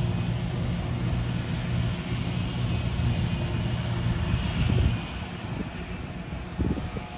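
John Deere self-propelled forage harvester chopping grass, with tractors pulling silage wagons beside it: a steady engine drone with a low hum and the hiss of the chopped crop. The sound fades a little about five seconds in as the machines move away.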